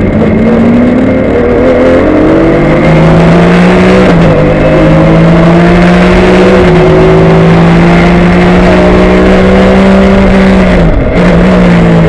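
Porsche 996 GT3 Cup race car's flat-six engine at full throttle, heard inside the cockpit. The note climbs, drops sharply twice as the driver shifts up, about four and six and a half seconds in, and holds at high revs. It dips briefly near the end as he lifts.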